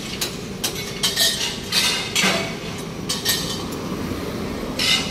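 Scrap steel pieces clinking and clanking against each other as they are picked up and sorted by hand: several separate ringing metallic strikes, the loudest about two seconds in and near the end, over steady low background noise.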